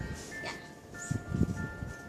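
Background music with sustained, bell-like chime notes, with a few low thuds about a second in.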